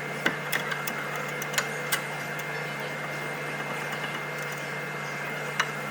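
A few short, sharp metal clinks from a pry bar levering between a steering knuckle and lower control arm to pop the ball joint free, most in the first two seconds and one more near the end, over a steady low hum.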